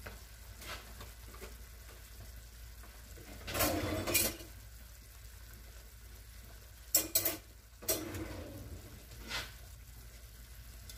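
Cooking utensils and a pot being handled: a short scrape about a third of the way in, then a few clinks and knocks later on, over a steady low hum.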